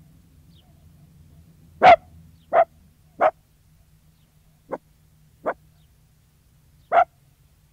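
Sealyham terrier barking in single barks: three loud ones about two-thirds of a second apart, then two softer ones, then one more loud bark a second and a half later.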